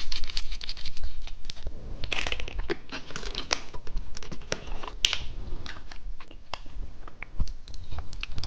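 Candy packaging crinkling and rustling, with many small irregular clicks and ticks as sweets are handled and sprinkled.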